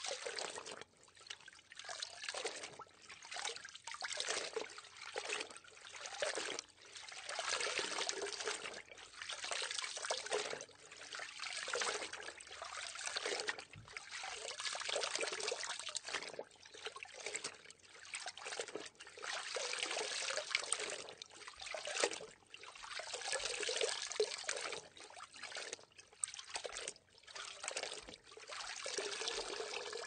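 Water trickling and pouring in irregular surges a second or two long, each swelling and fading with short lulls between.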